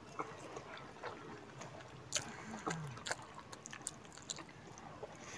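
Quiet eating sounds: spicy instant noodles being slurped and chewed, with scattered small clicks and smacks.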